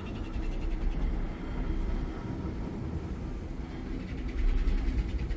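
Steady low rumble of a passenger ferry's engines running, with uneven gusts of wind buffeting the microphone on the open deck.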